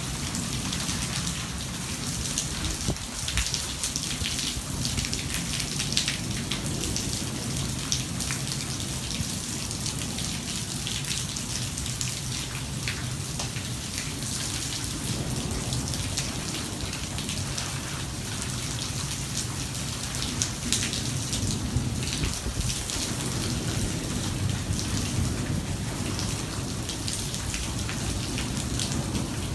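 Heavy thunderstorm rain falling steadily, with many sharp drop hits spattering on a hard surface.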